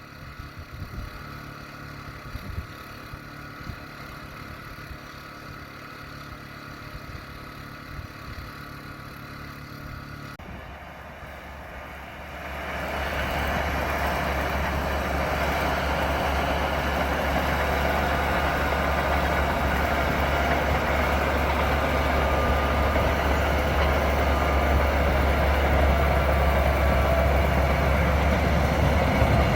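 A faint steady low hum with scattered low knocks for about ten seconds. Then the Caterpillar D8K dozer's diesel engine comes in about twelve seconds in and runs steadily and loud.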